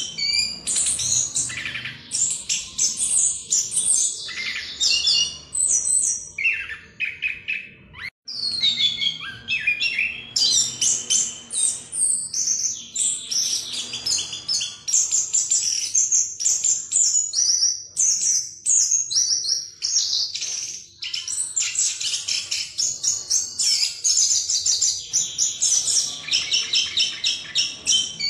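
Chestnut-capped thrush (anis kembang) singing a long, fast rolling song of high, rapid notes and trills, almost without pause; a short break comes about eight seconds in.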